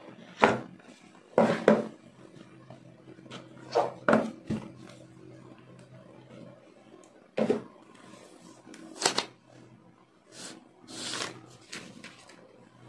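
Handling noises from unboxing a smartphone: the cardboard box lid sliding off and the handset being lifted out, heard as a dozen scattered knocks and scrapes. Near the end, a longer rustling hiss as the printed protective film is peeled off the screen.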